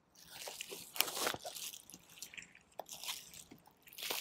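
Clear plastic shrink-wrap crinkling and crackling as it is peeled off a cardboard box and crumpled by hand, in irregular crackles.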